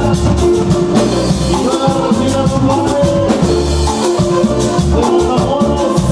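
A live Latin band playing loud dance music: a steady drum-kit and bass beat under sustained keyboard and accordion melody lines.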